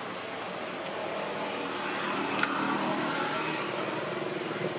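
A motor vehicle engine humming steadily and slowly growing louder, with one sharp click about halfway through.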